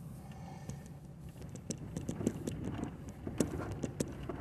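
Car cabin noise while driving slowly over a snow-packed, icy road: a steady low rumble with irregular ticks and crunches from the tyres on packed snow and ice, getting busier about two seconds in.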